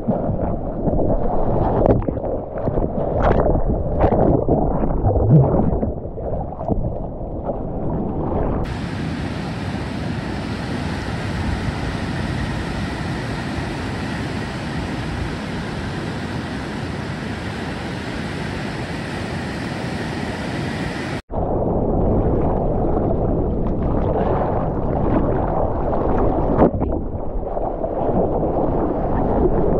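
Water rushing and splashing around a surfboard, with wind buffeting a board-mounted action camera, all heard dull and muffled. For a stretch in the middle it gives way to a steady, even wash of breaking surf heard from the shore, then cuts back abruptly to the muffled rushing of water.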